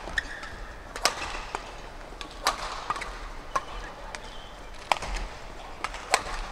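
Indoor badminton arena ambience: a steady murmur of spectators, broken by about six sharp clicks at irregular intervals.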